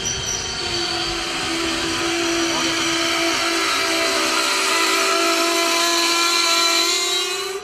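Indian Railways sleeper-class passenger coaches rolling past close by, with a loud, continuous high-pitched metallic squeal from the steel running gear over the rumble of the wheels on the rails.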